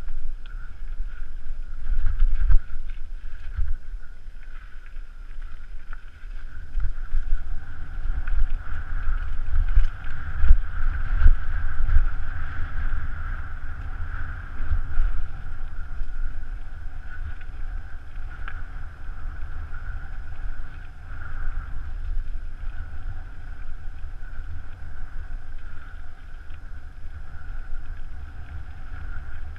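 Wind buffeting a helmet-mounted camera's microphone, with the rumble and rattle of a mountain bike ridden fast over a dirt forest trail.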